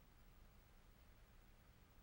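Near silence: only a faint steady hiss with a low hum.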